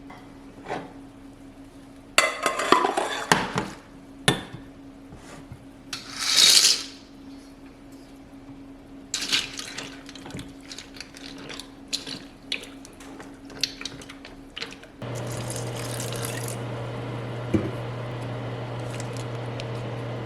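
Kitchen sounds: dishes and utensils clattering, with a short burst of running tap water about six seconds in. About fifteen seconds in, a steady appliance hum starts and holds.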